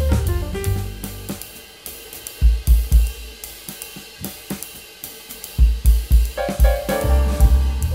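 Background music with a drum kit: hi-hat and cymbals with deep kick-drum beats. The melody drops away in the middle, leaving mostly drums, and comes back near the end.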